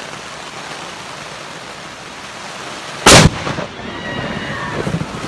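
Steady hiss of heavy rain, then about three seconds in a single deafening crack of thunder from a lightning strike very close by, lasting a fraction of a second, with the rain continuing after it.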